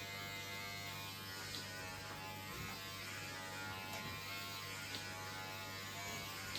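Electric hair clippers running steadily with a continuous buzz while cutting hair.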